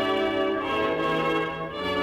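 Music: held chords of bell-like tones that change every half second or so.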